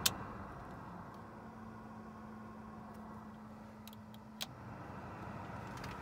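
Land Rover Freelander heater blower fan running, working again on the low speeds after a new resistor unit was fitted, with air rushing steadily from the dash vents. A steady low hum stops about four seconds in, and there are a few sharp clicks at the start and around the point where the hum stops.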